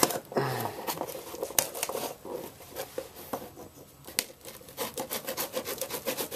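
Serrated switchblade knife cutting through the packing tape on a cardboard box: a run of short, irregular scrapes and clicks as the blade drags along the seam.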